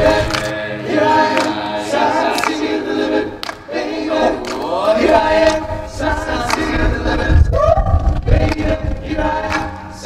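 A choir of voices singing together, with long held notes and sliding pitches.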